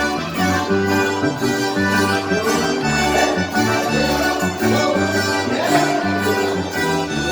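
Chilena, Mexican folk dance music, playing with a steady, changing bass line under sustained melody notes.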